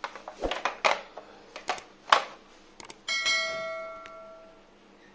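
A few knocks and rustles from handling the board and wires, then about three seconds in a bell-like ding that rings out and fades over about a second and a half: the notification-bell sound effect of a subscribe-button animation.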